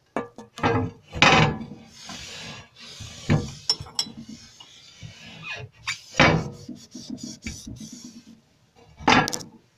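A cloth rubbing and scraping over the surfaces of a china cabinet as they are wiped clean. Several sharp knocks and clatters of the hand and cloth against the cabinet come through it.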